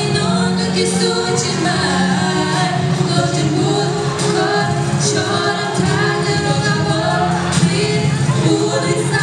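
Two women singing a duet into handheld microphones over accompanying music.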